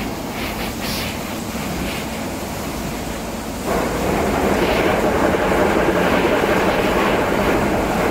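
A 160 kW metal-chip shredder running, with shredded metal turnings pouring from its outlet into a steel bin. About three and a half seconds in, the sound steps up suddenly and stays louder as the flow of falling chips grows heavier.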